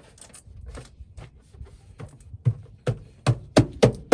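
Sound-deadening mat being worked down onto a car's sheet-metal floor: light scraping and clicks, then from about halfway a run of sharp knocks, about three a second, growing louder.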